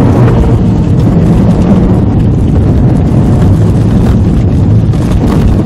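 Inside the cabin of a Subaru WRX STI (VAB) under way: steady drone of its EJ20 turbocharged flat-four engine mixed with road and drivetrain noise.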